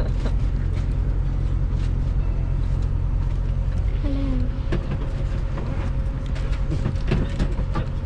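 Engine and road noise inside a moving vehicle: a steady low rumble. A thin steady tone joins about halfway.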